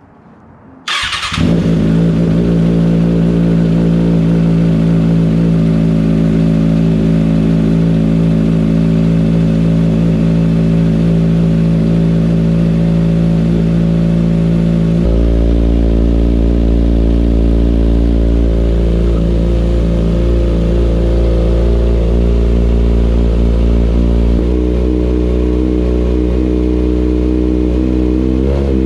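2020 Kawasaki ZX6R's 636 cc inline-four cold-started through an M4 GP19 slip-on exhaust with no catalytic converter. It cranks briefly and catches about a second in, then holds a steady, loud high cold idle that steps down in pitch twice. The revs start rising right at the end.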